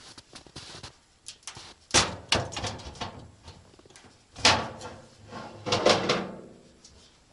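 Handling noises: a handful of sharp knocks and scrapes, the longest one near the end carrying a short creaking ring.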